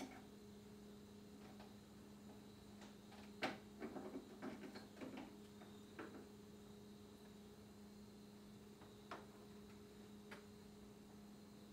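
Faint steady electrical hum with a few scattered light clicks and taps, a flurry of them about four to five seconds in.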